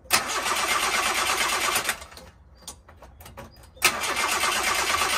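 Nissan S-Cargo's starter motor cranking the engine in two attempts of about two seconds each, and the engine does not catch. It is fuel-starved: fuel is not getting through to the pump.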